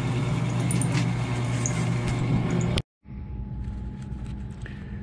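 A 1955 Diamond milling machine running, a steady motor-and-drive hum with faint high ticks, cut off suddenly a little under three seconds in. After a brief silence a much quieter steady hum remains.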